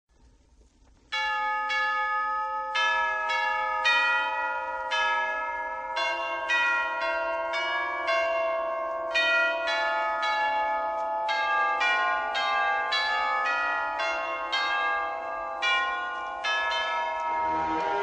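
Bell chimes ringing a run of single struck notes, about two or three a second, each ringing on under the next, starting about a second in.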